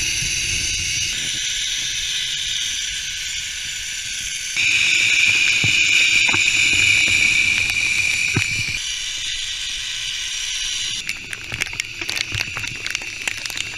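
Zipline trolley pulleys running along the steel cable, a steady high hiss over a low wind rumble that jumps in level a few times. From about 11 seconds in, many sharp ticks join it, raindrops striking the camera.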